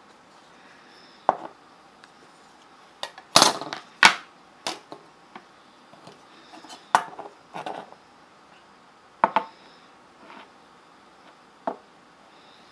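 Brass and copper steampunk phone cases handled on a wooden table: a scattering of sharp metal clicks, clinks and knocks as they are picked up and set down, loudest about three to four seconds in.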